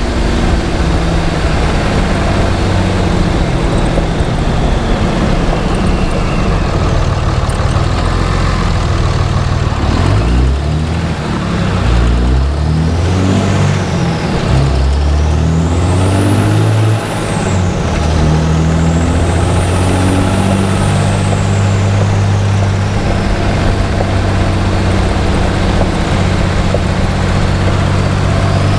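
Cummins diesel truck engine running under way, with the turbocharger's high whistle rising and falling in pitch several times in the second half and climbing again near the end. The engine note changes pitch about halfway through.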